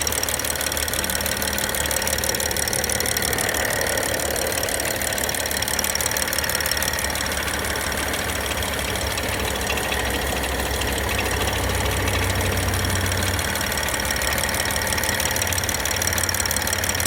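BMW N55 turbocharged inline-six engine idling cold, with a steady, rapid knocking running through it. The owner takes the knock to come from somewhere in the cylinder head.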